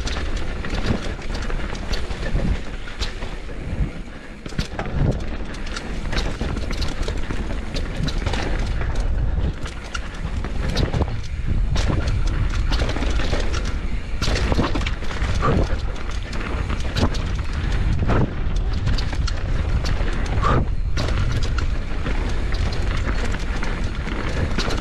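Canyon Torque full-suspension mountain bike descending a rocky dirt singletrack: steady wind rumble on the camera microphone, knobby tyres rolling over dirt and stones, and frequent knocks and rattles from the bike's chain, suspension and frame over roots and rocks.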